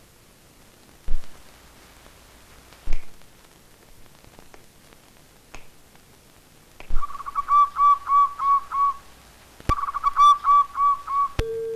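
A songbird's call: two runs of rapid, evenly repeated clear whistled notes, about seven notes each, in the second half. Two sharp clicks come earlier.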